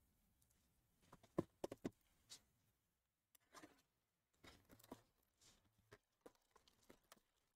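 Faint handling noise: a scatter of light clicks, taps and short rustles as hands move and grip cardboard trading-card boxes, with one sharper click about a second and a half in.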